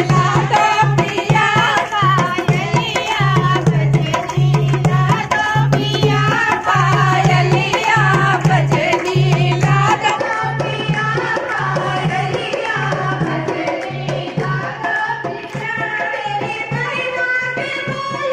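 Women singing a folk song into a microphone to a steady beat on a dholak, whose deep strokes repeat a little more than once a second.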